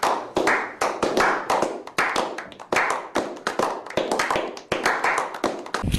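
A small group of people clapping their hands: sharp, separate claps, several a second.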